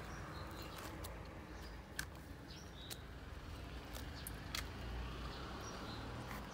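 Stray cats eating scraps close by: scattered soft clicks of chewing and mouthing food, over a low steady background rumble.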